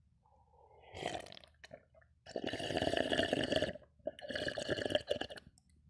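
A person slurping water noisily close to the microphone: a short slurp about a second in, then two long slurps of a second or more each.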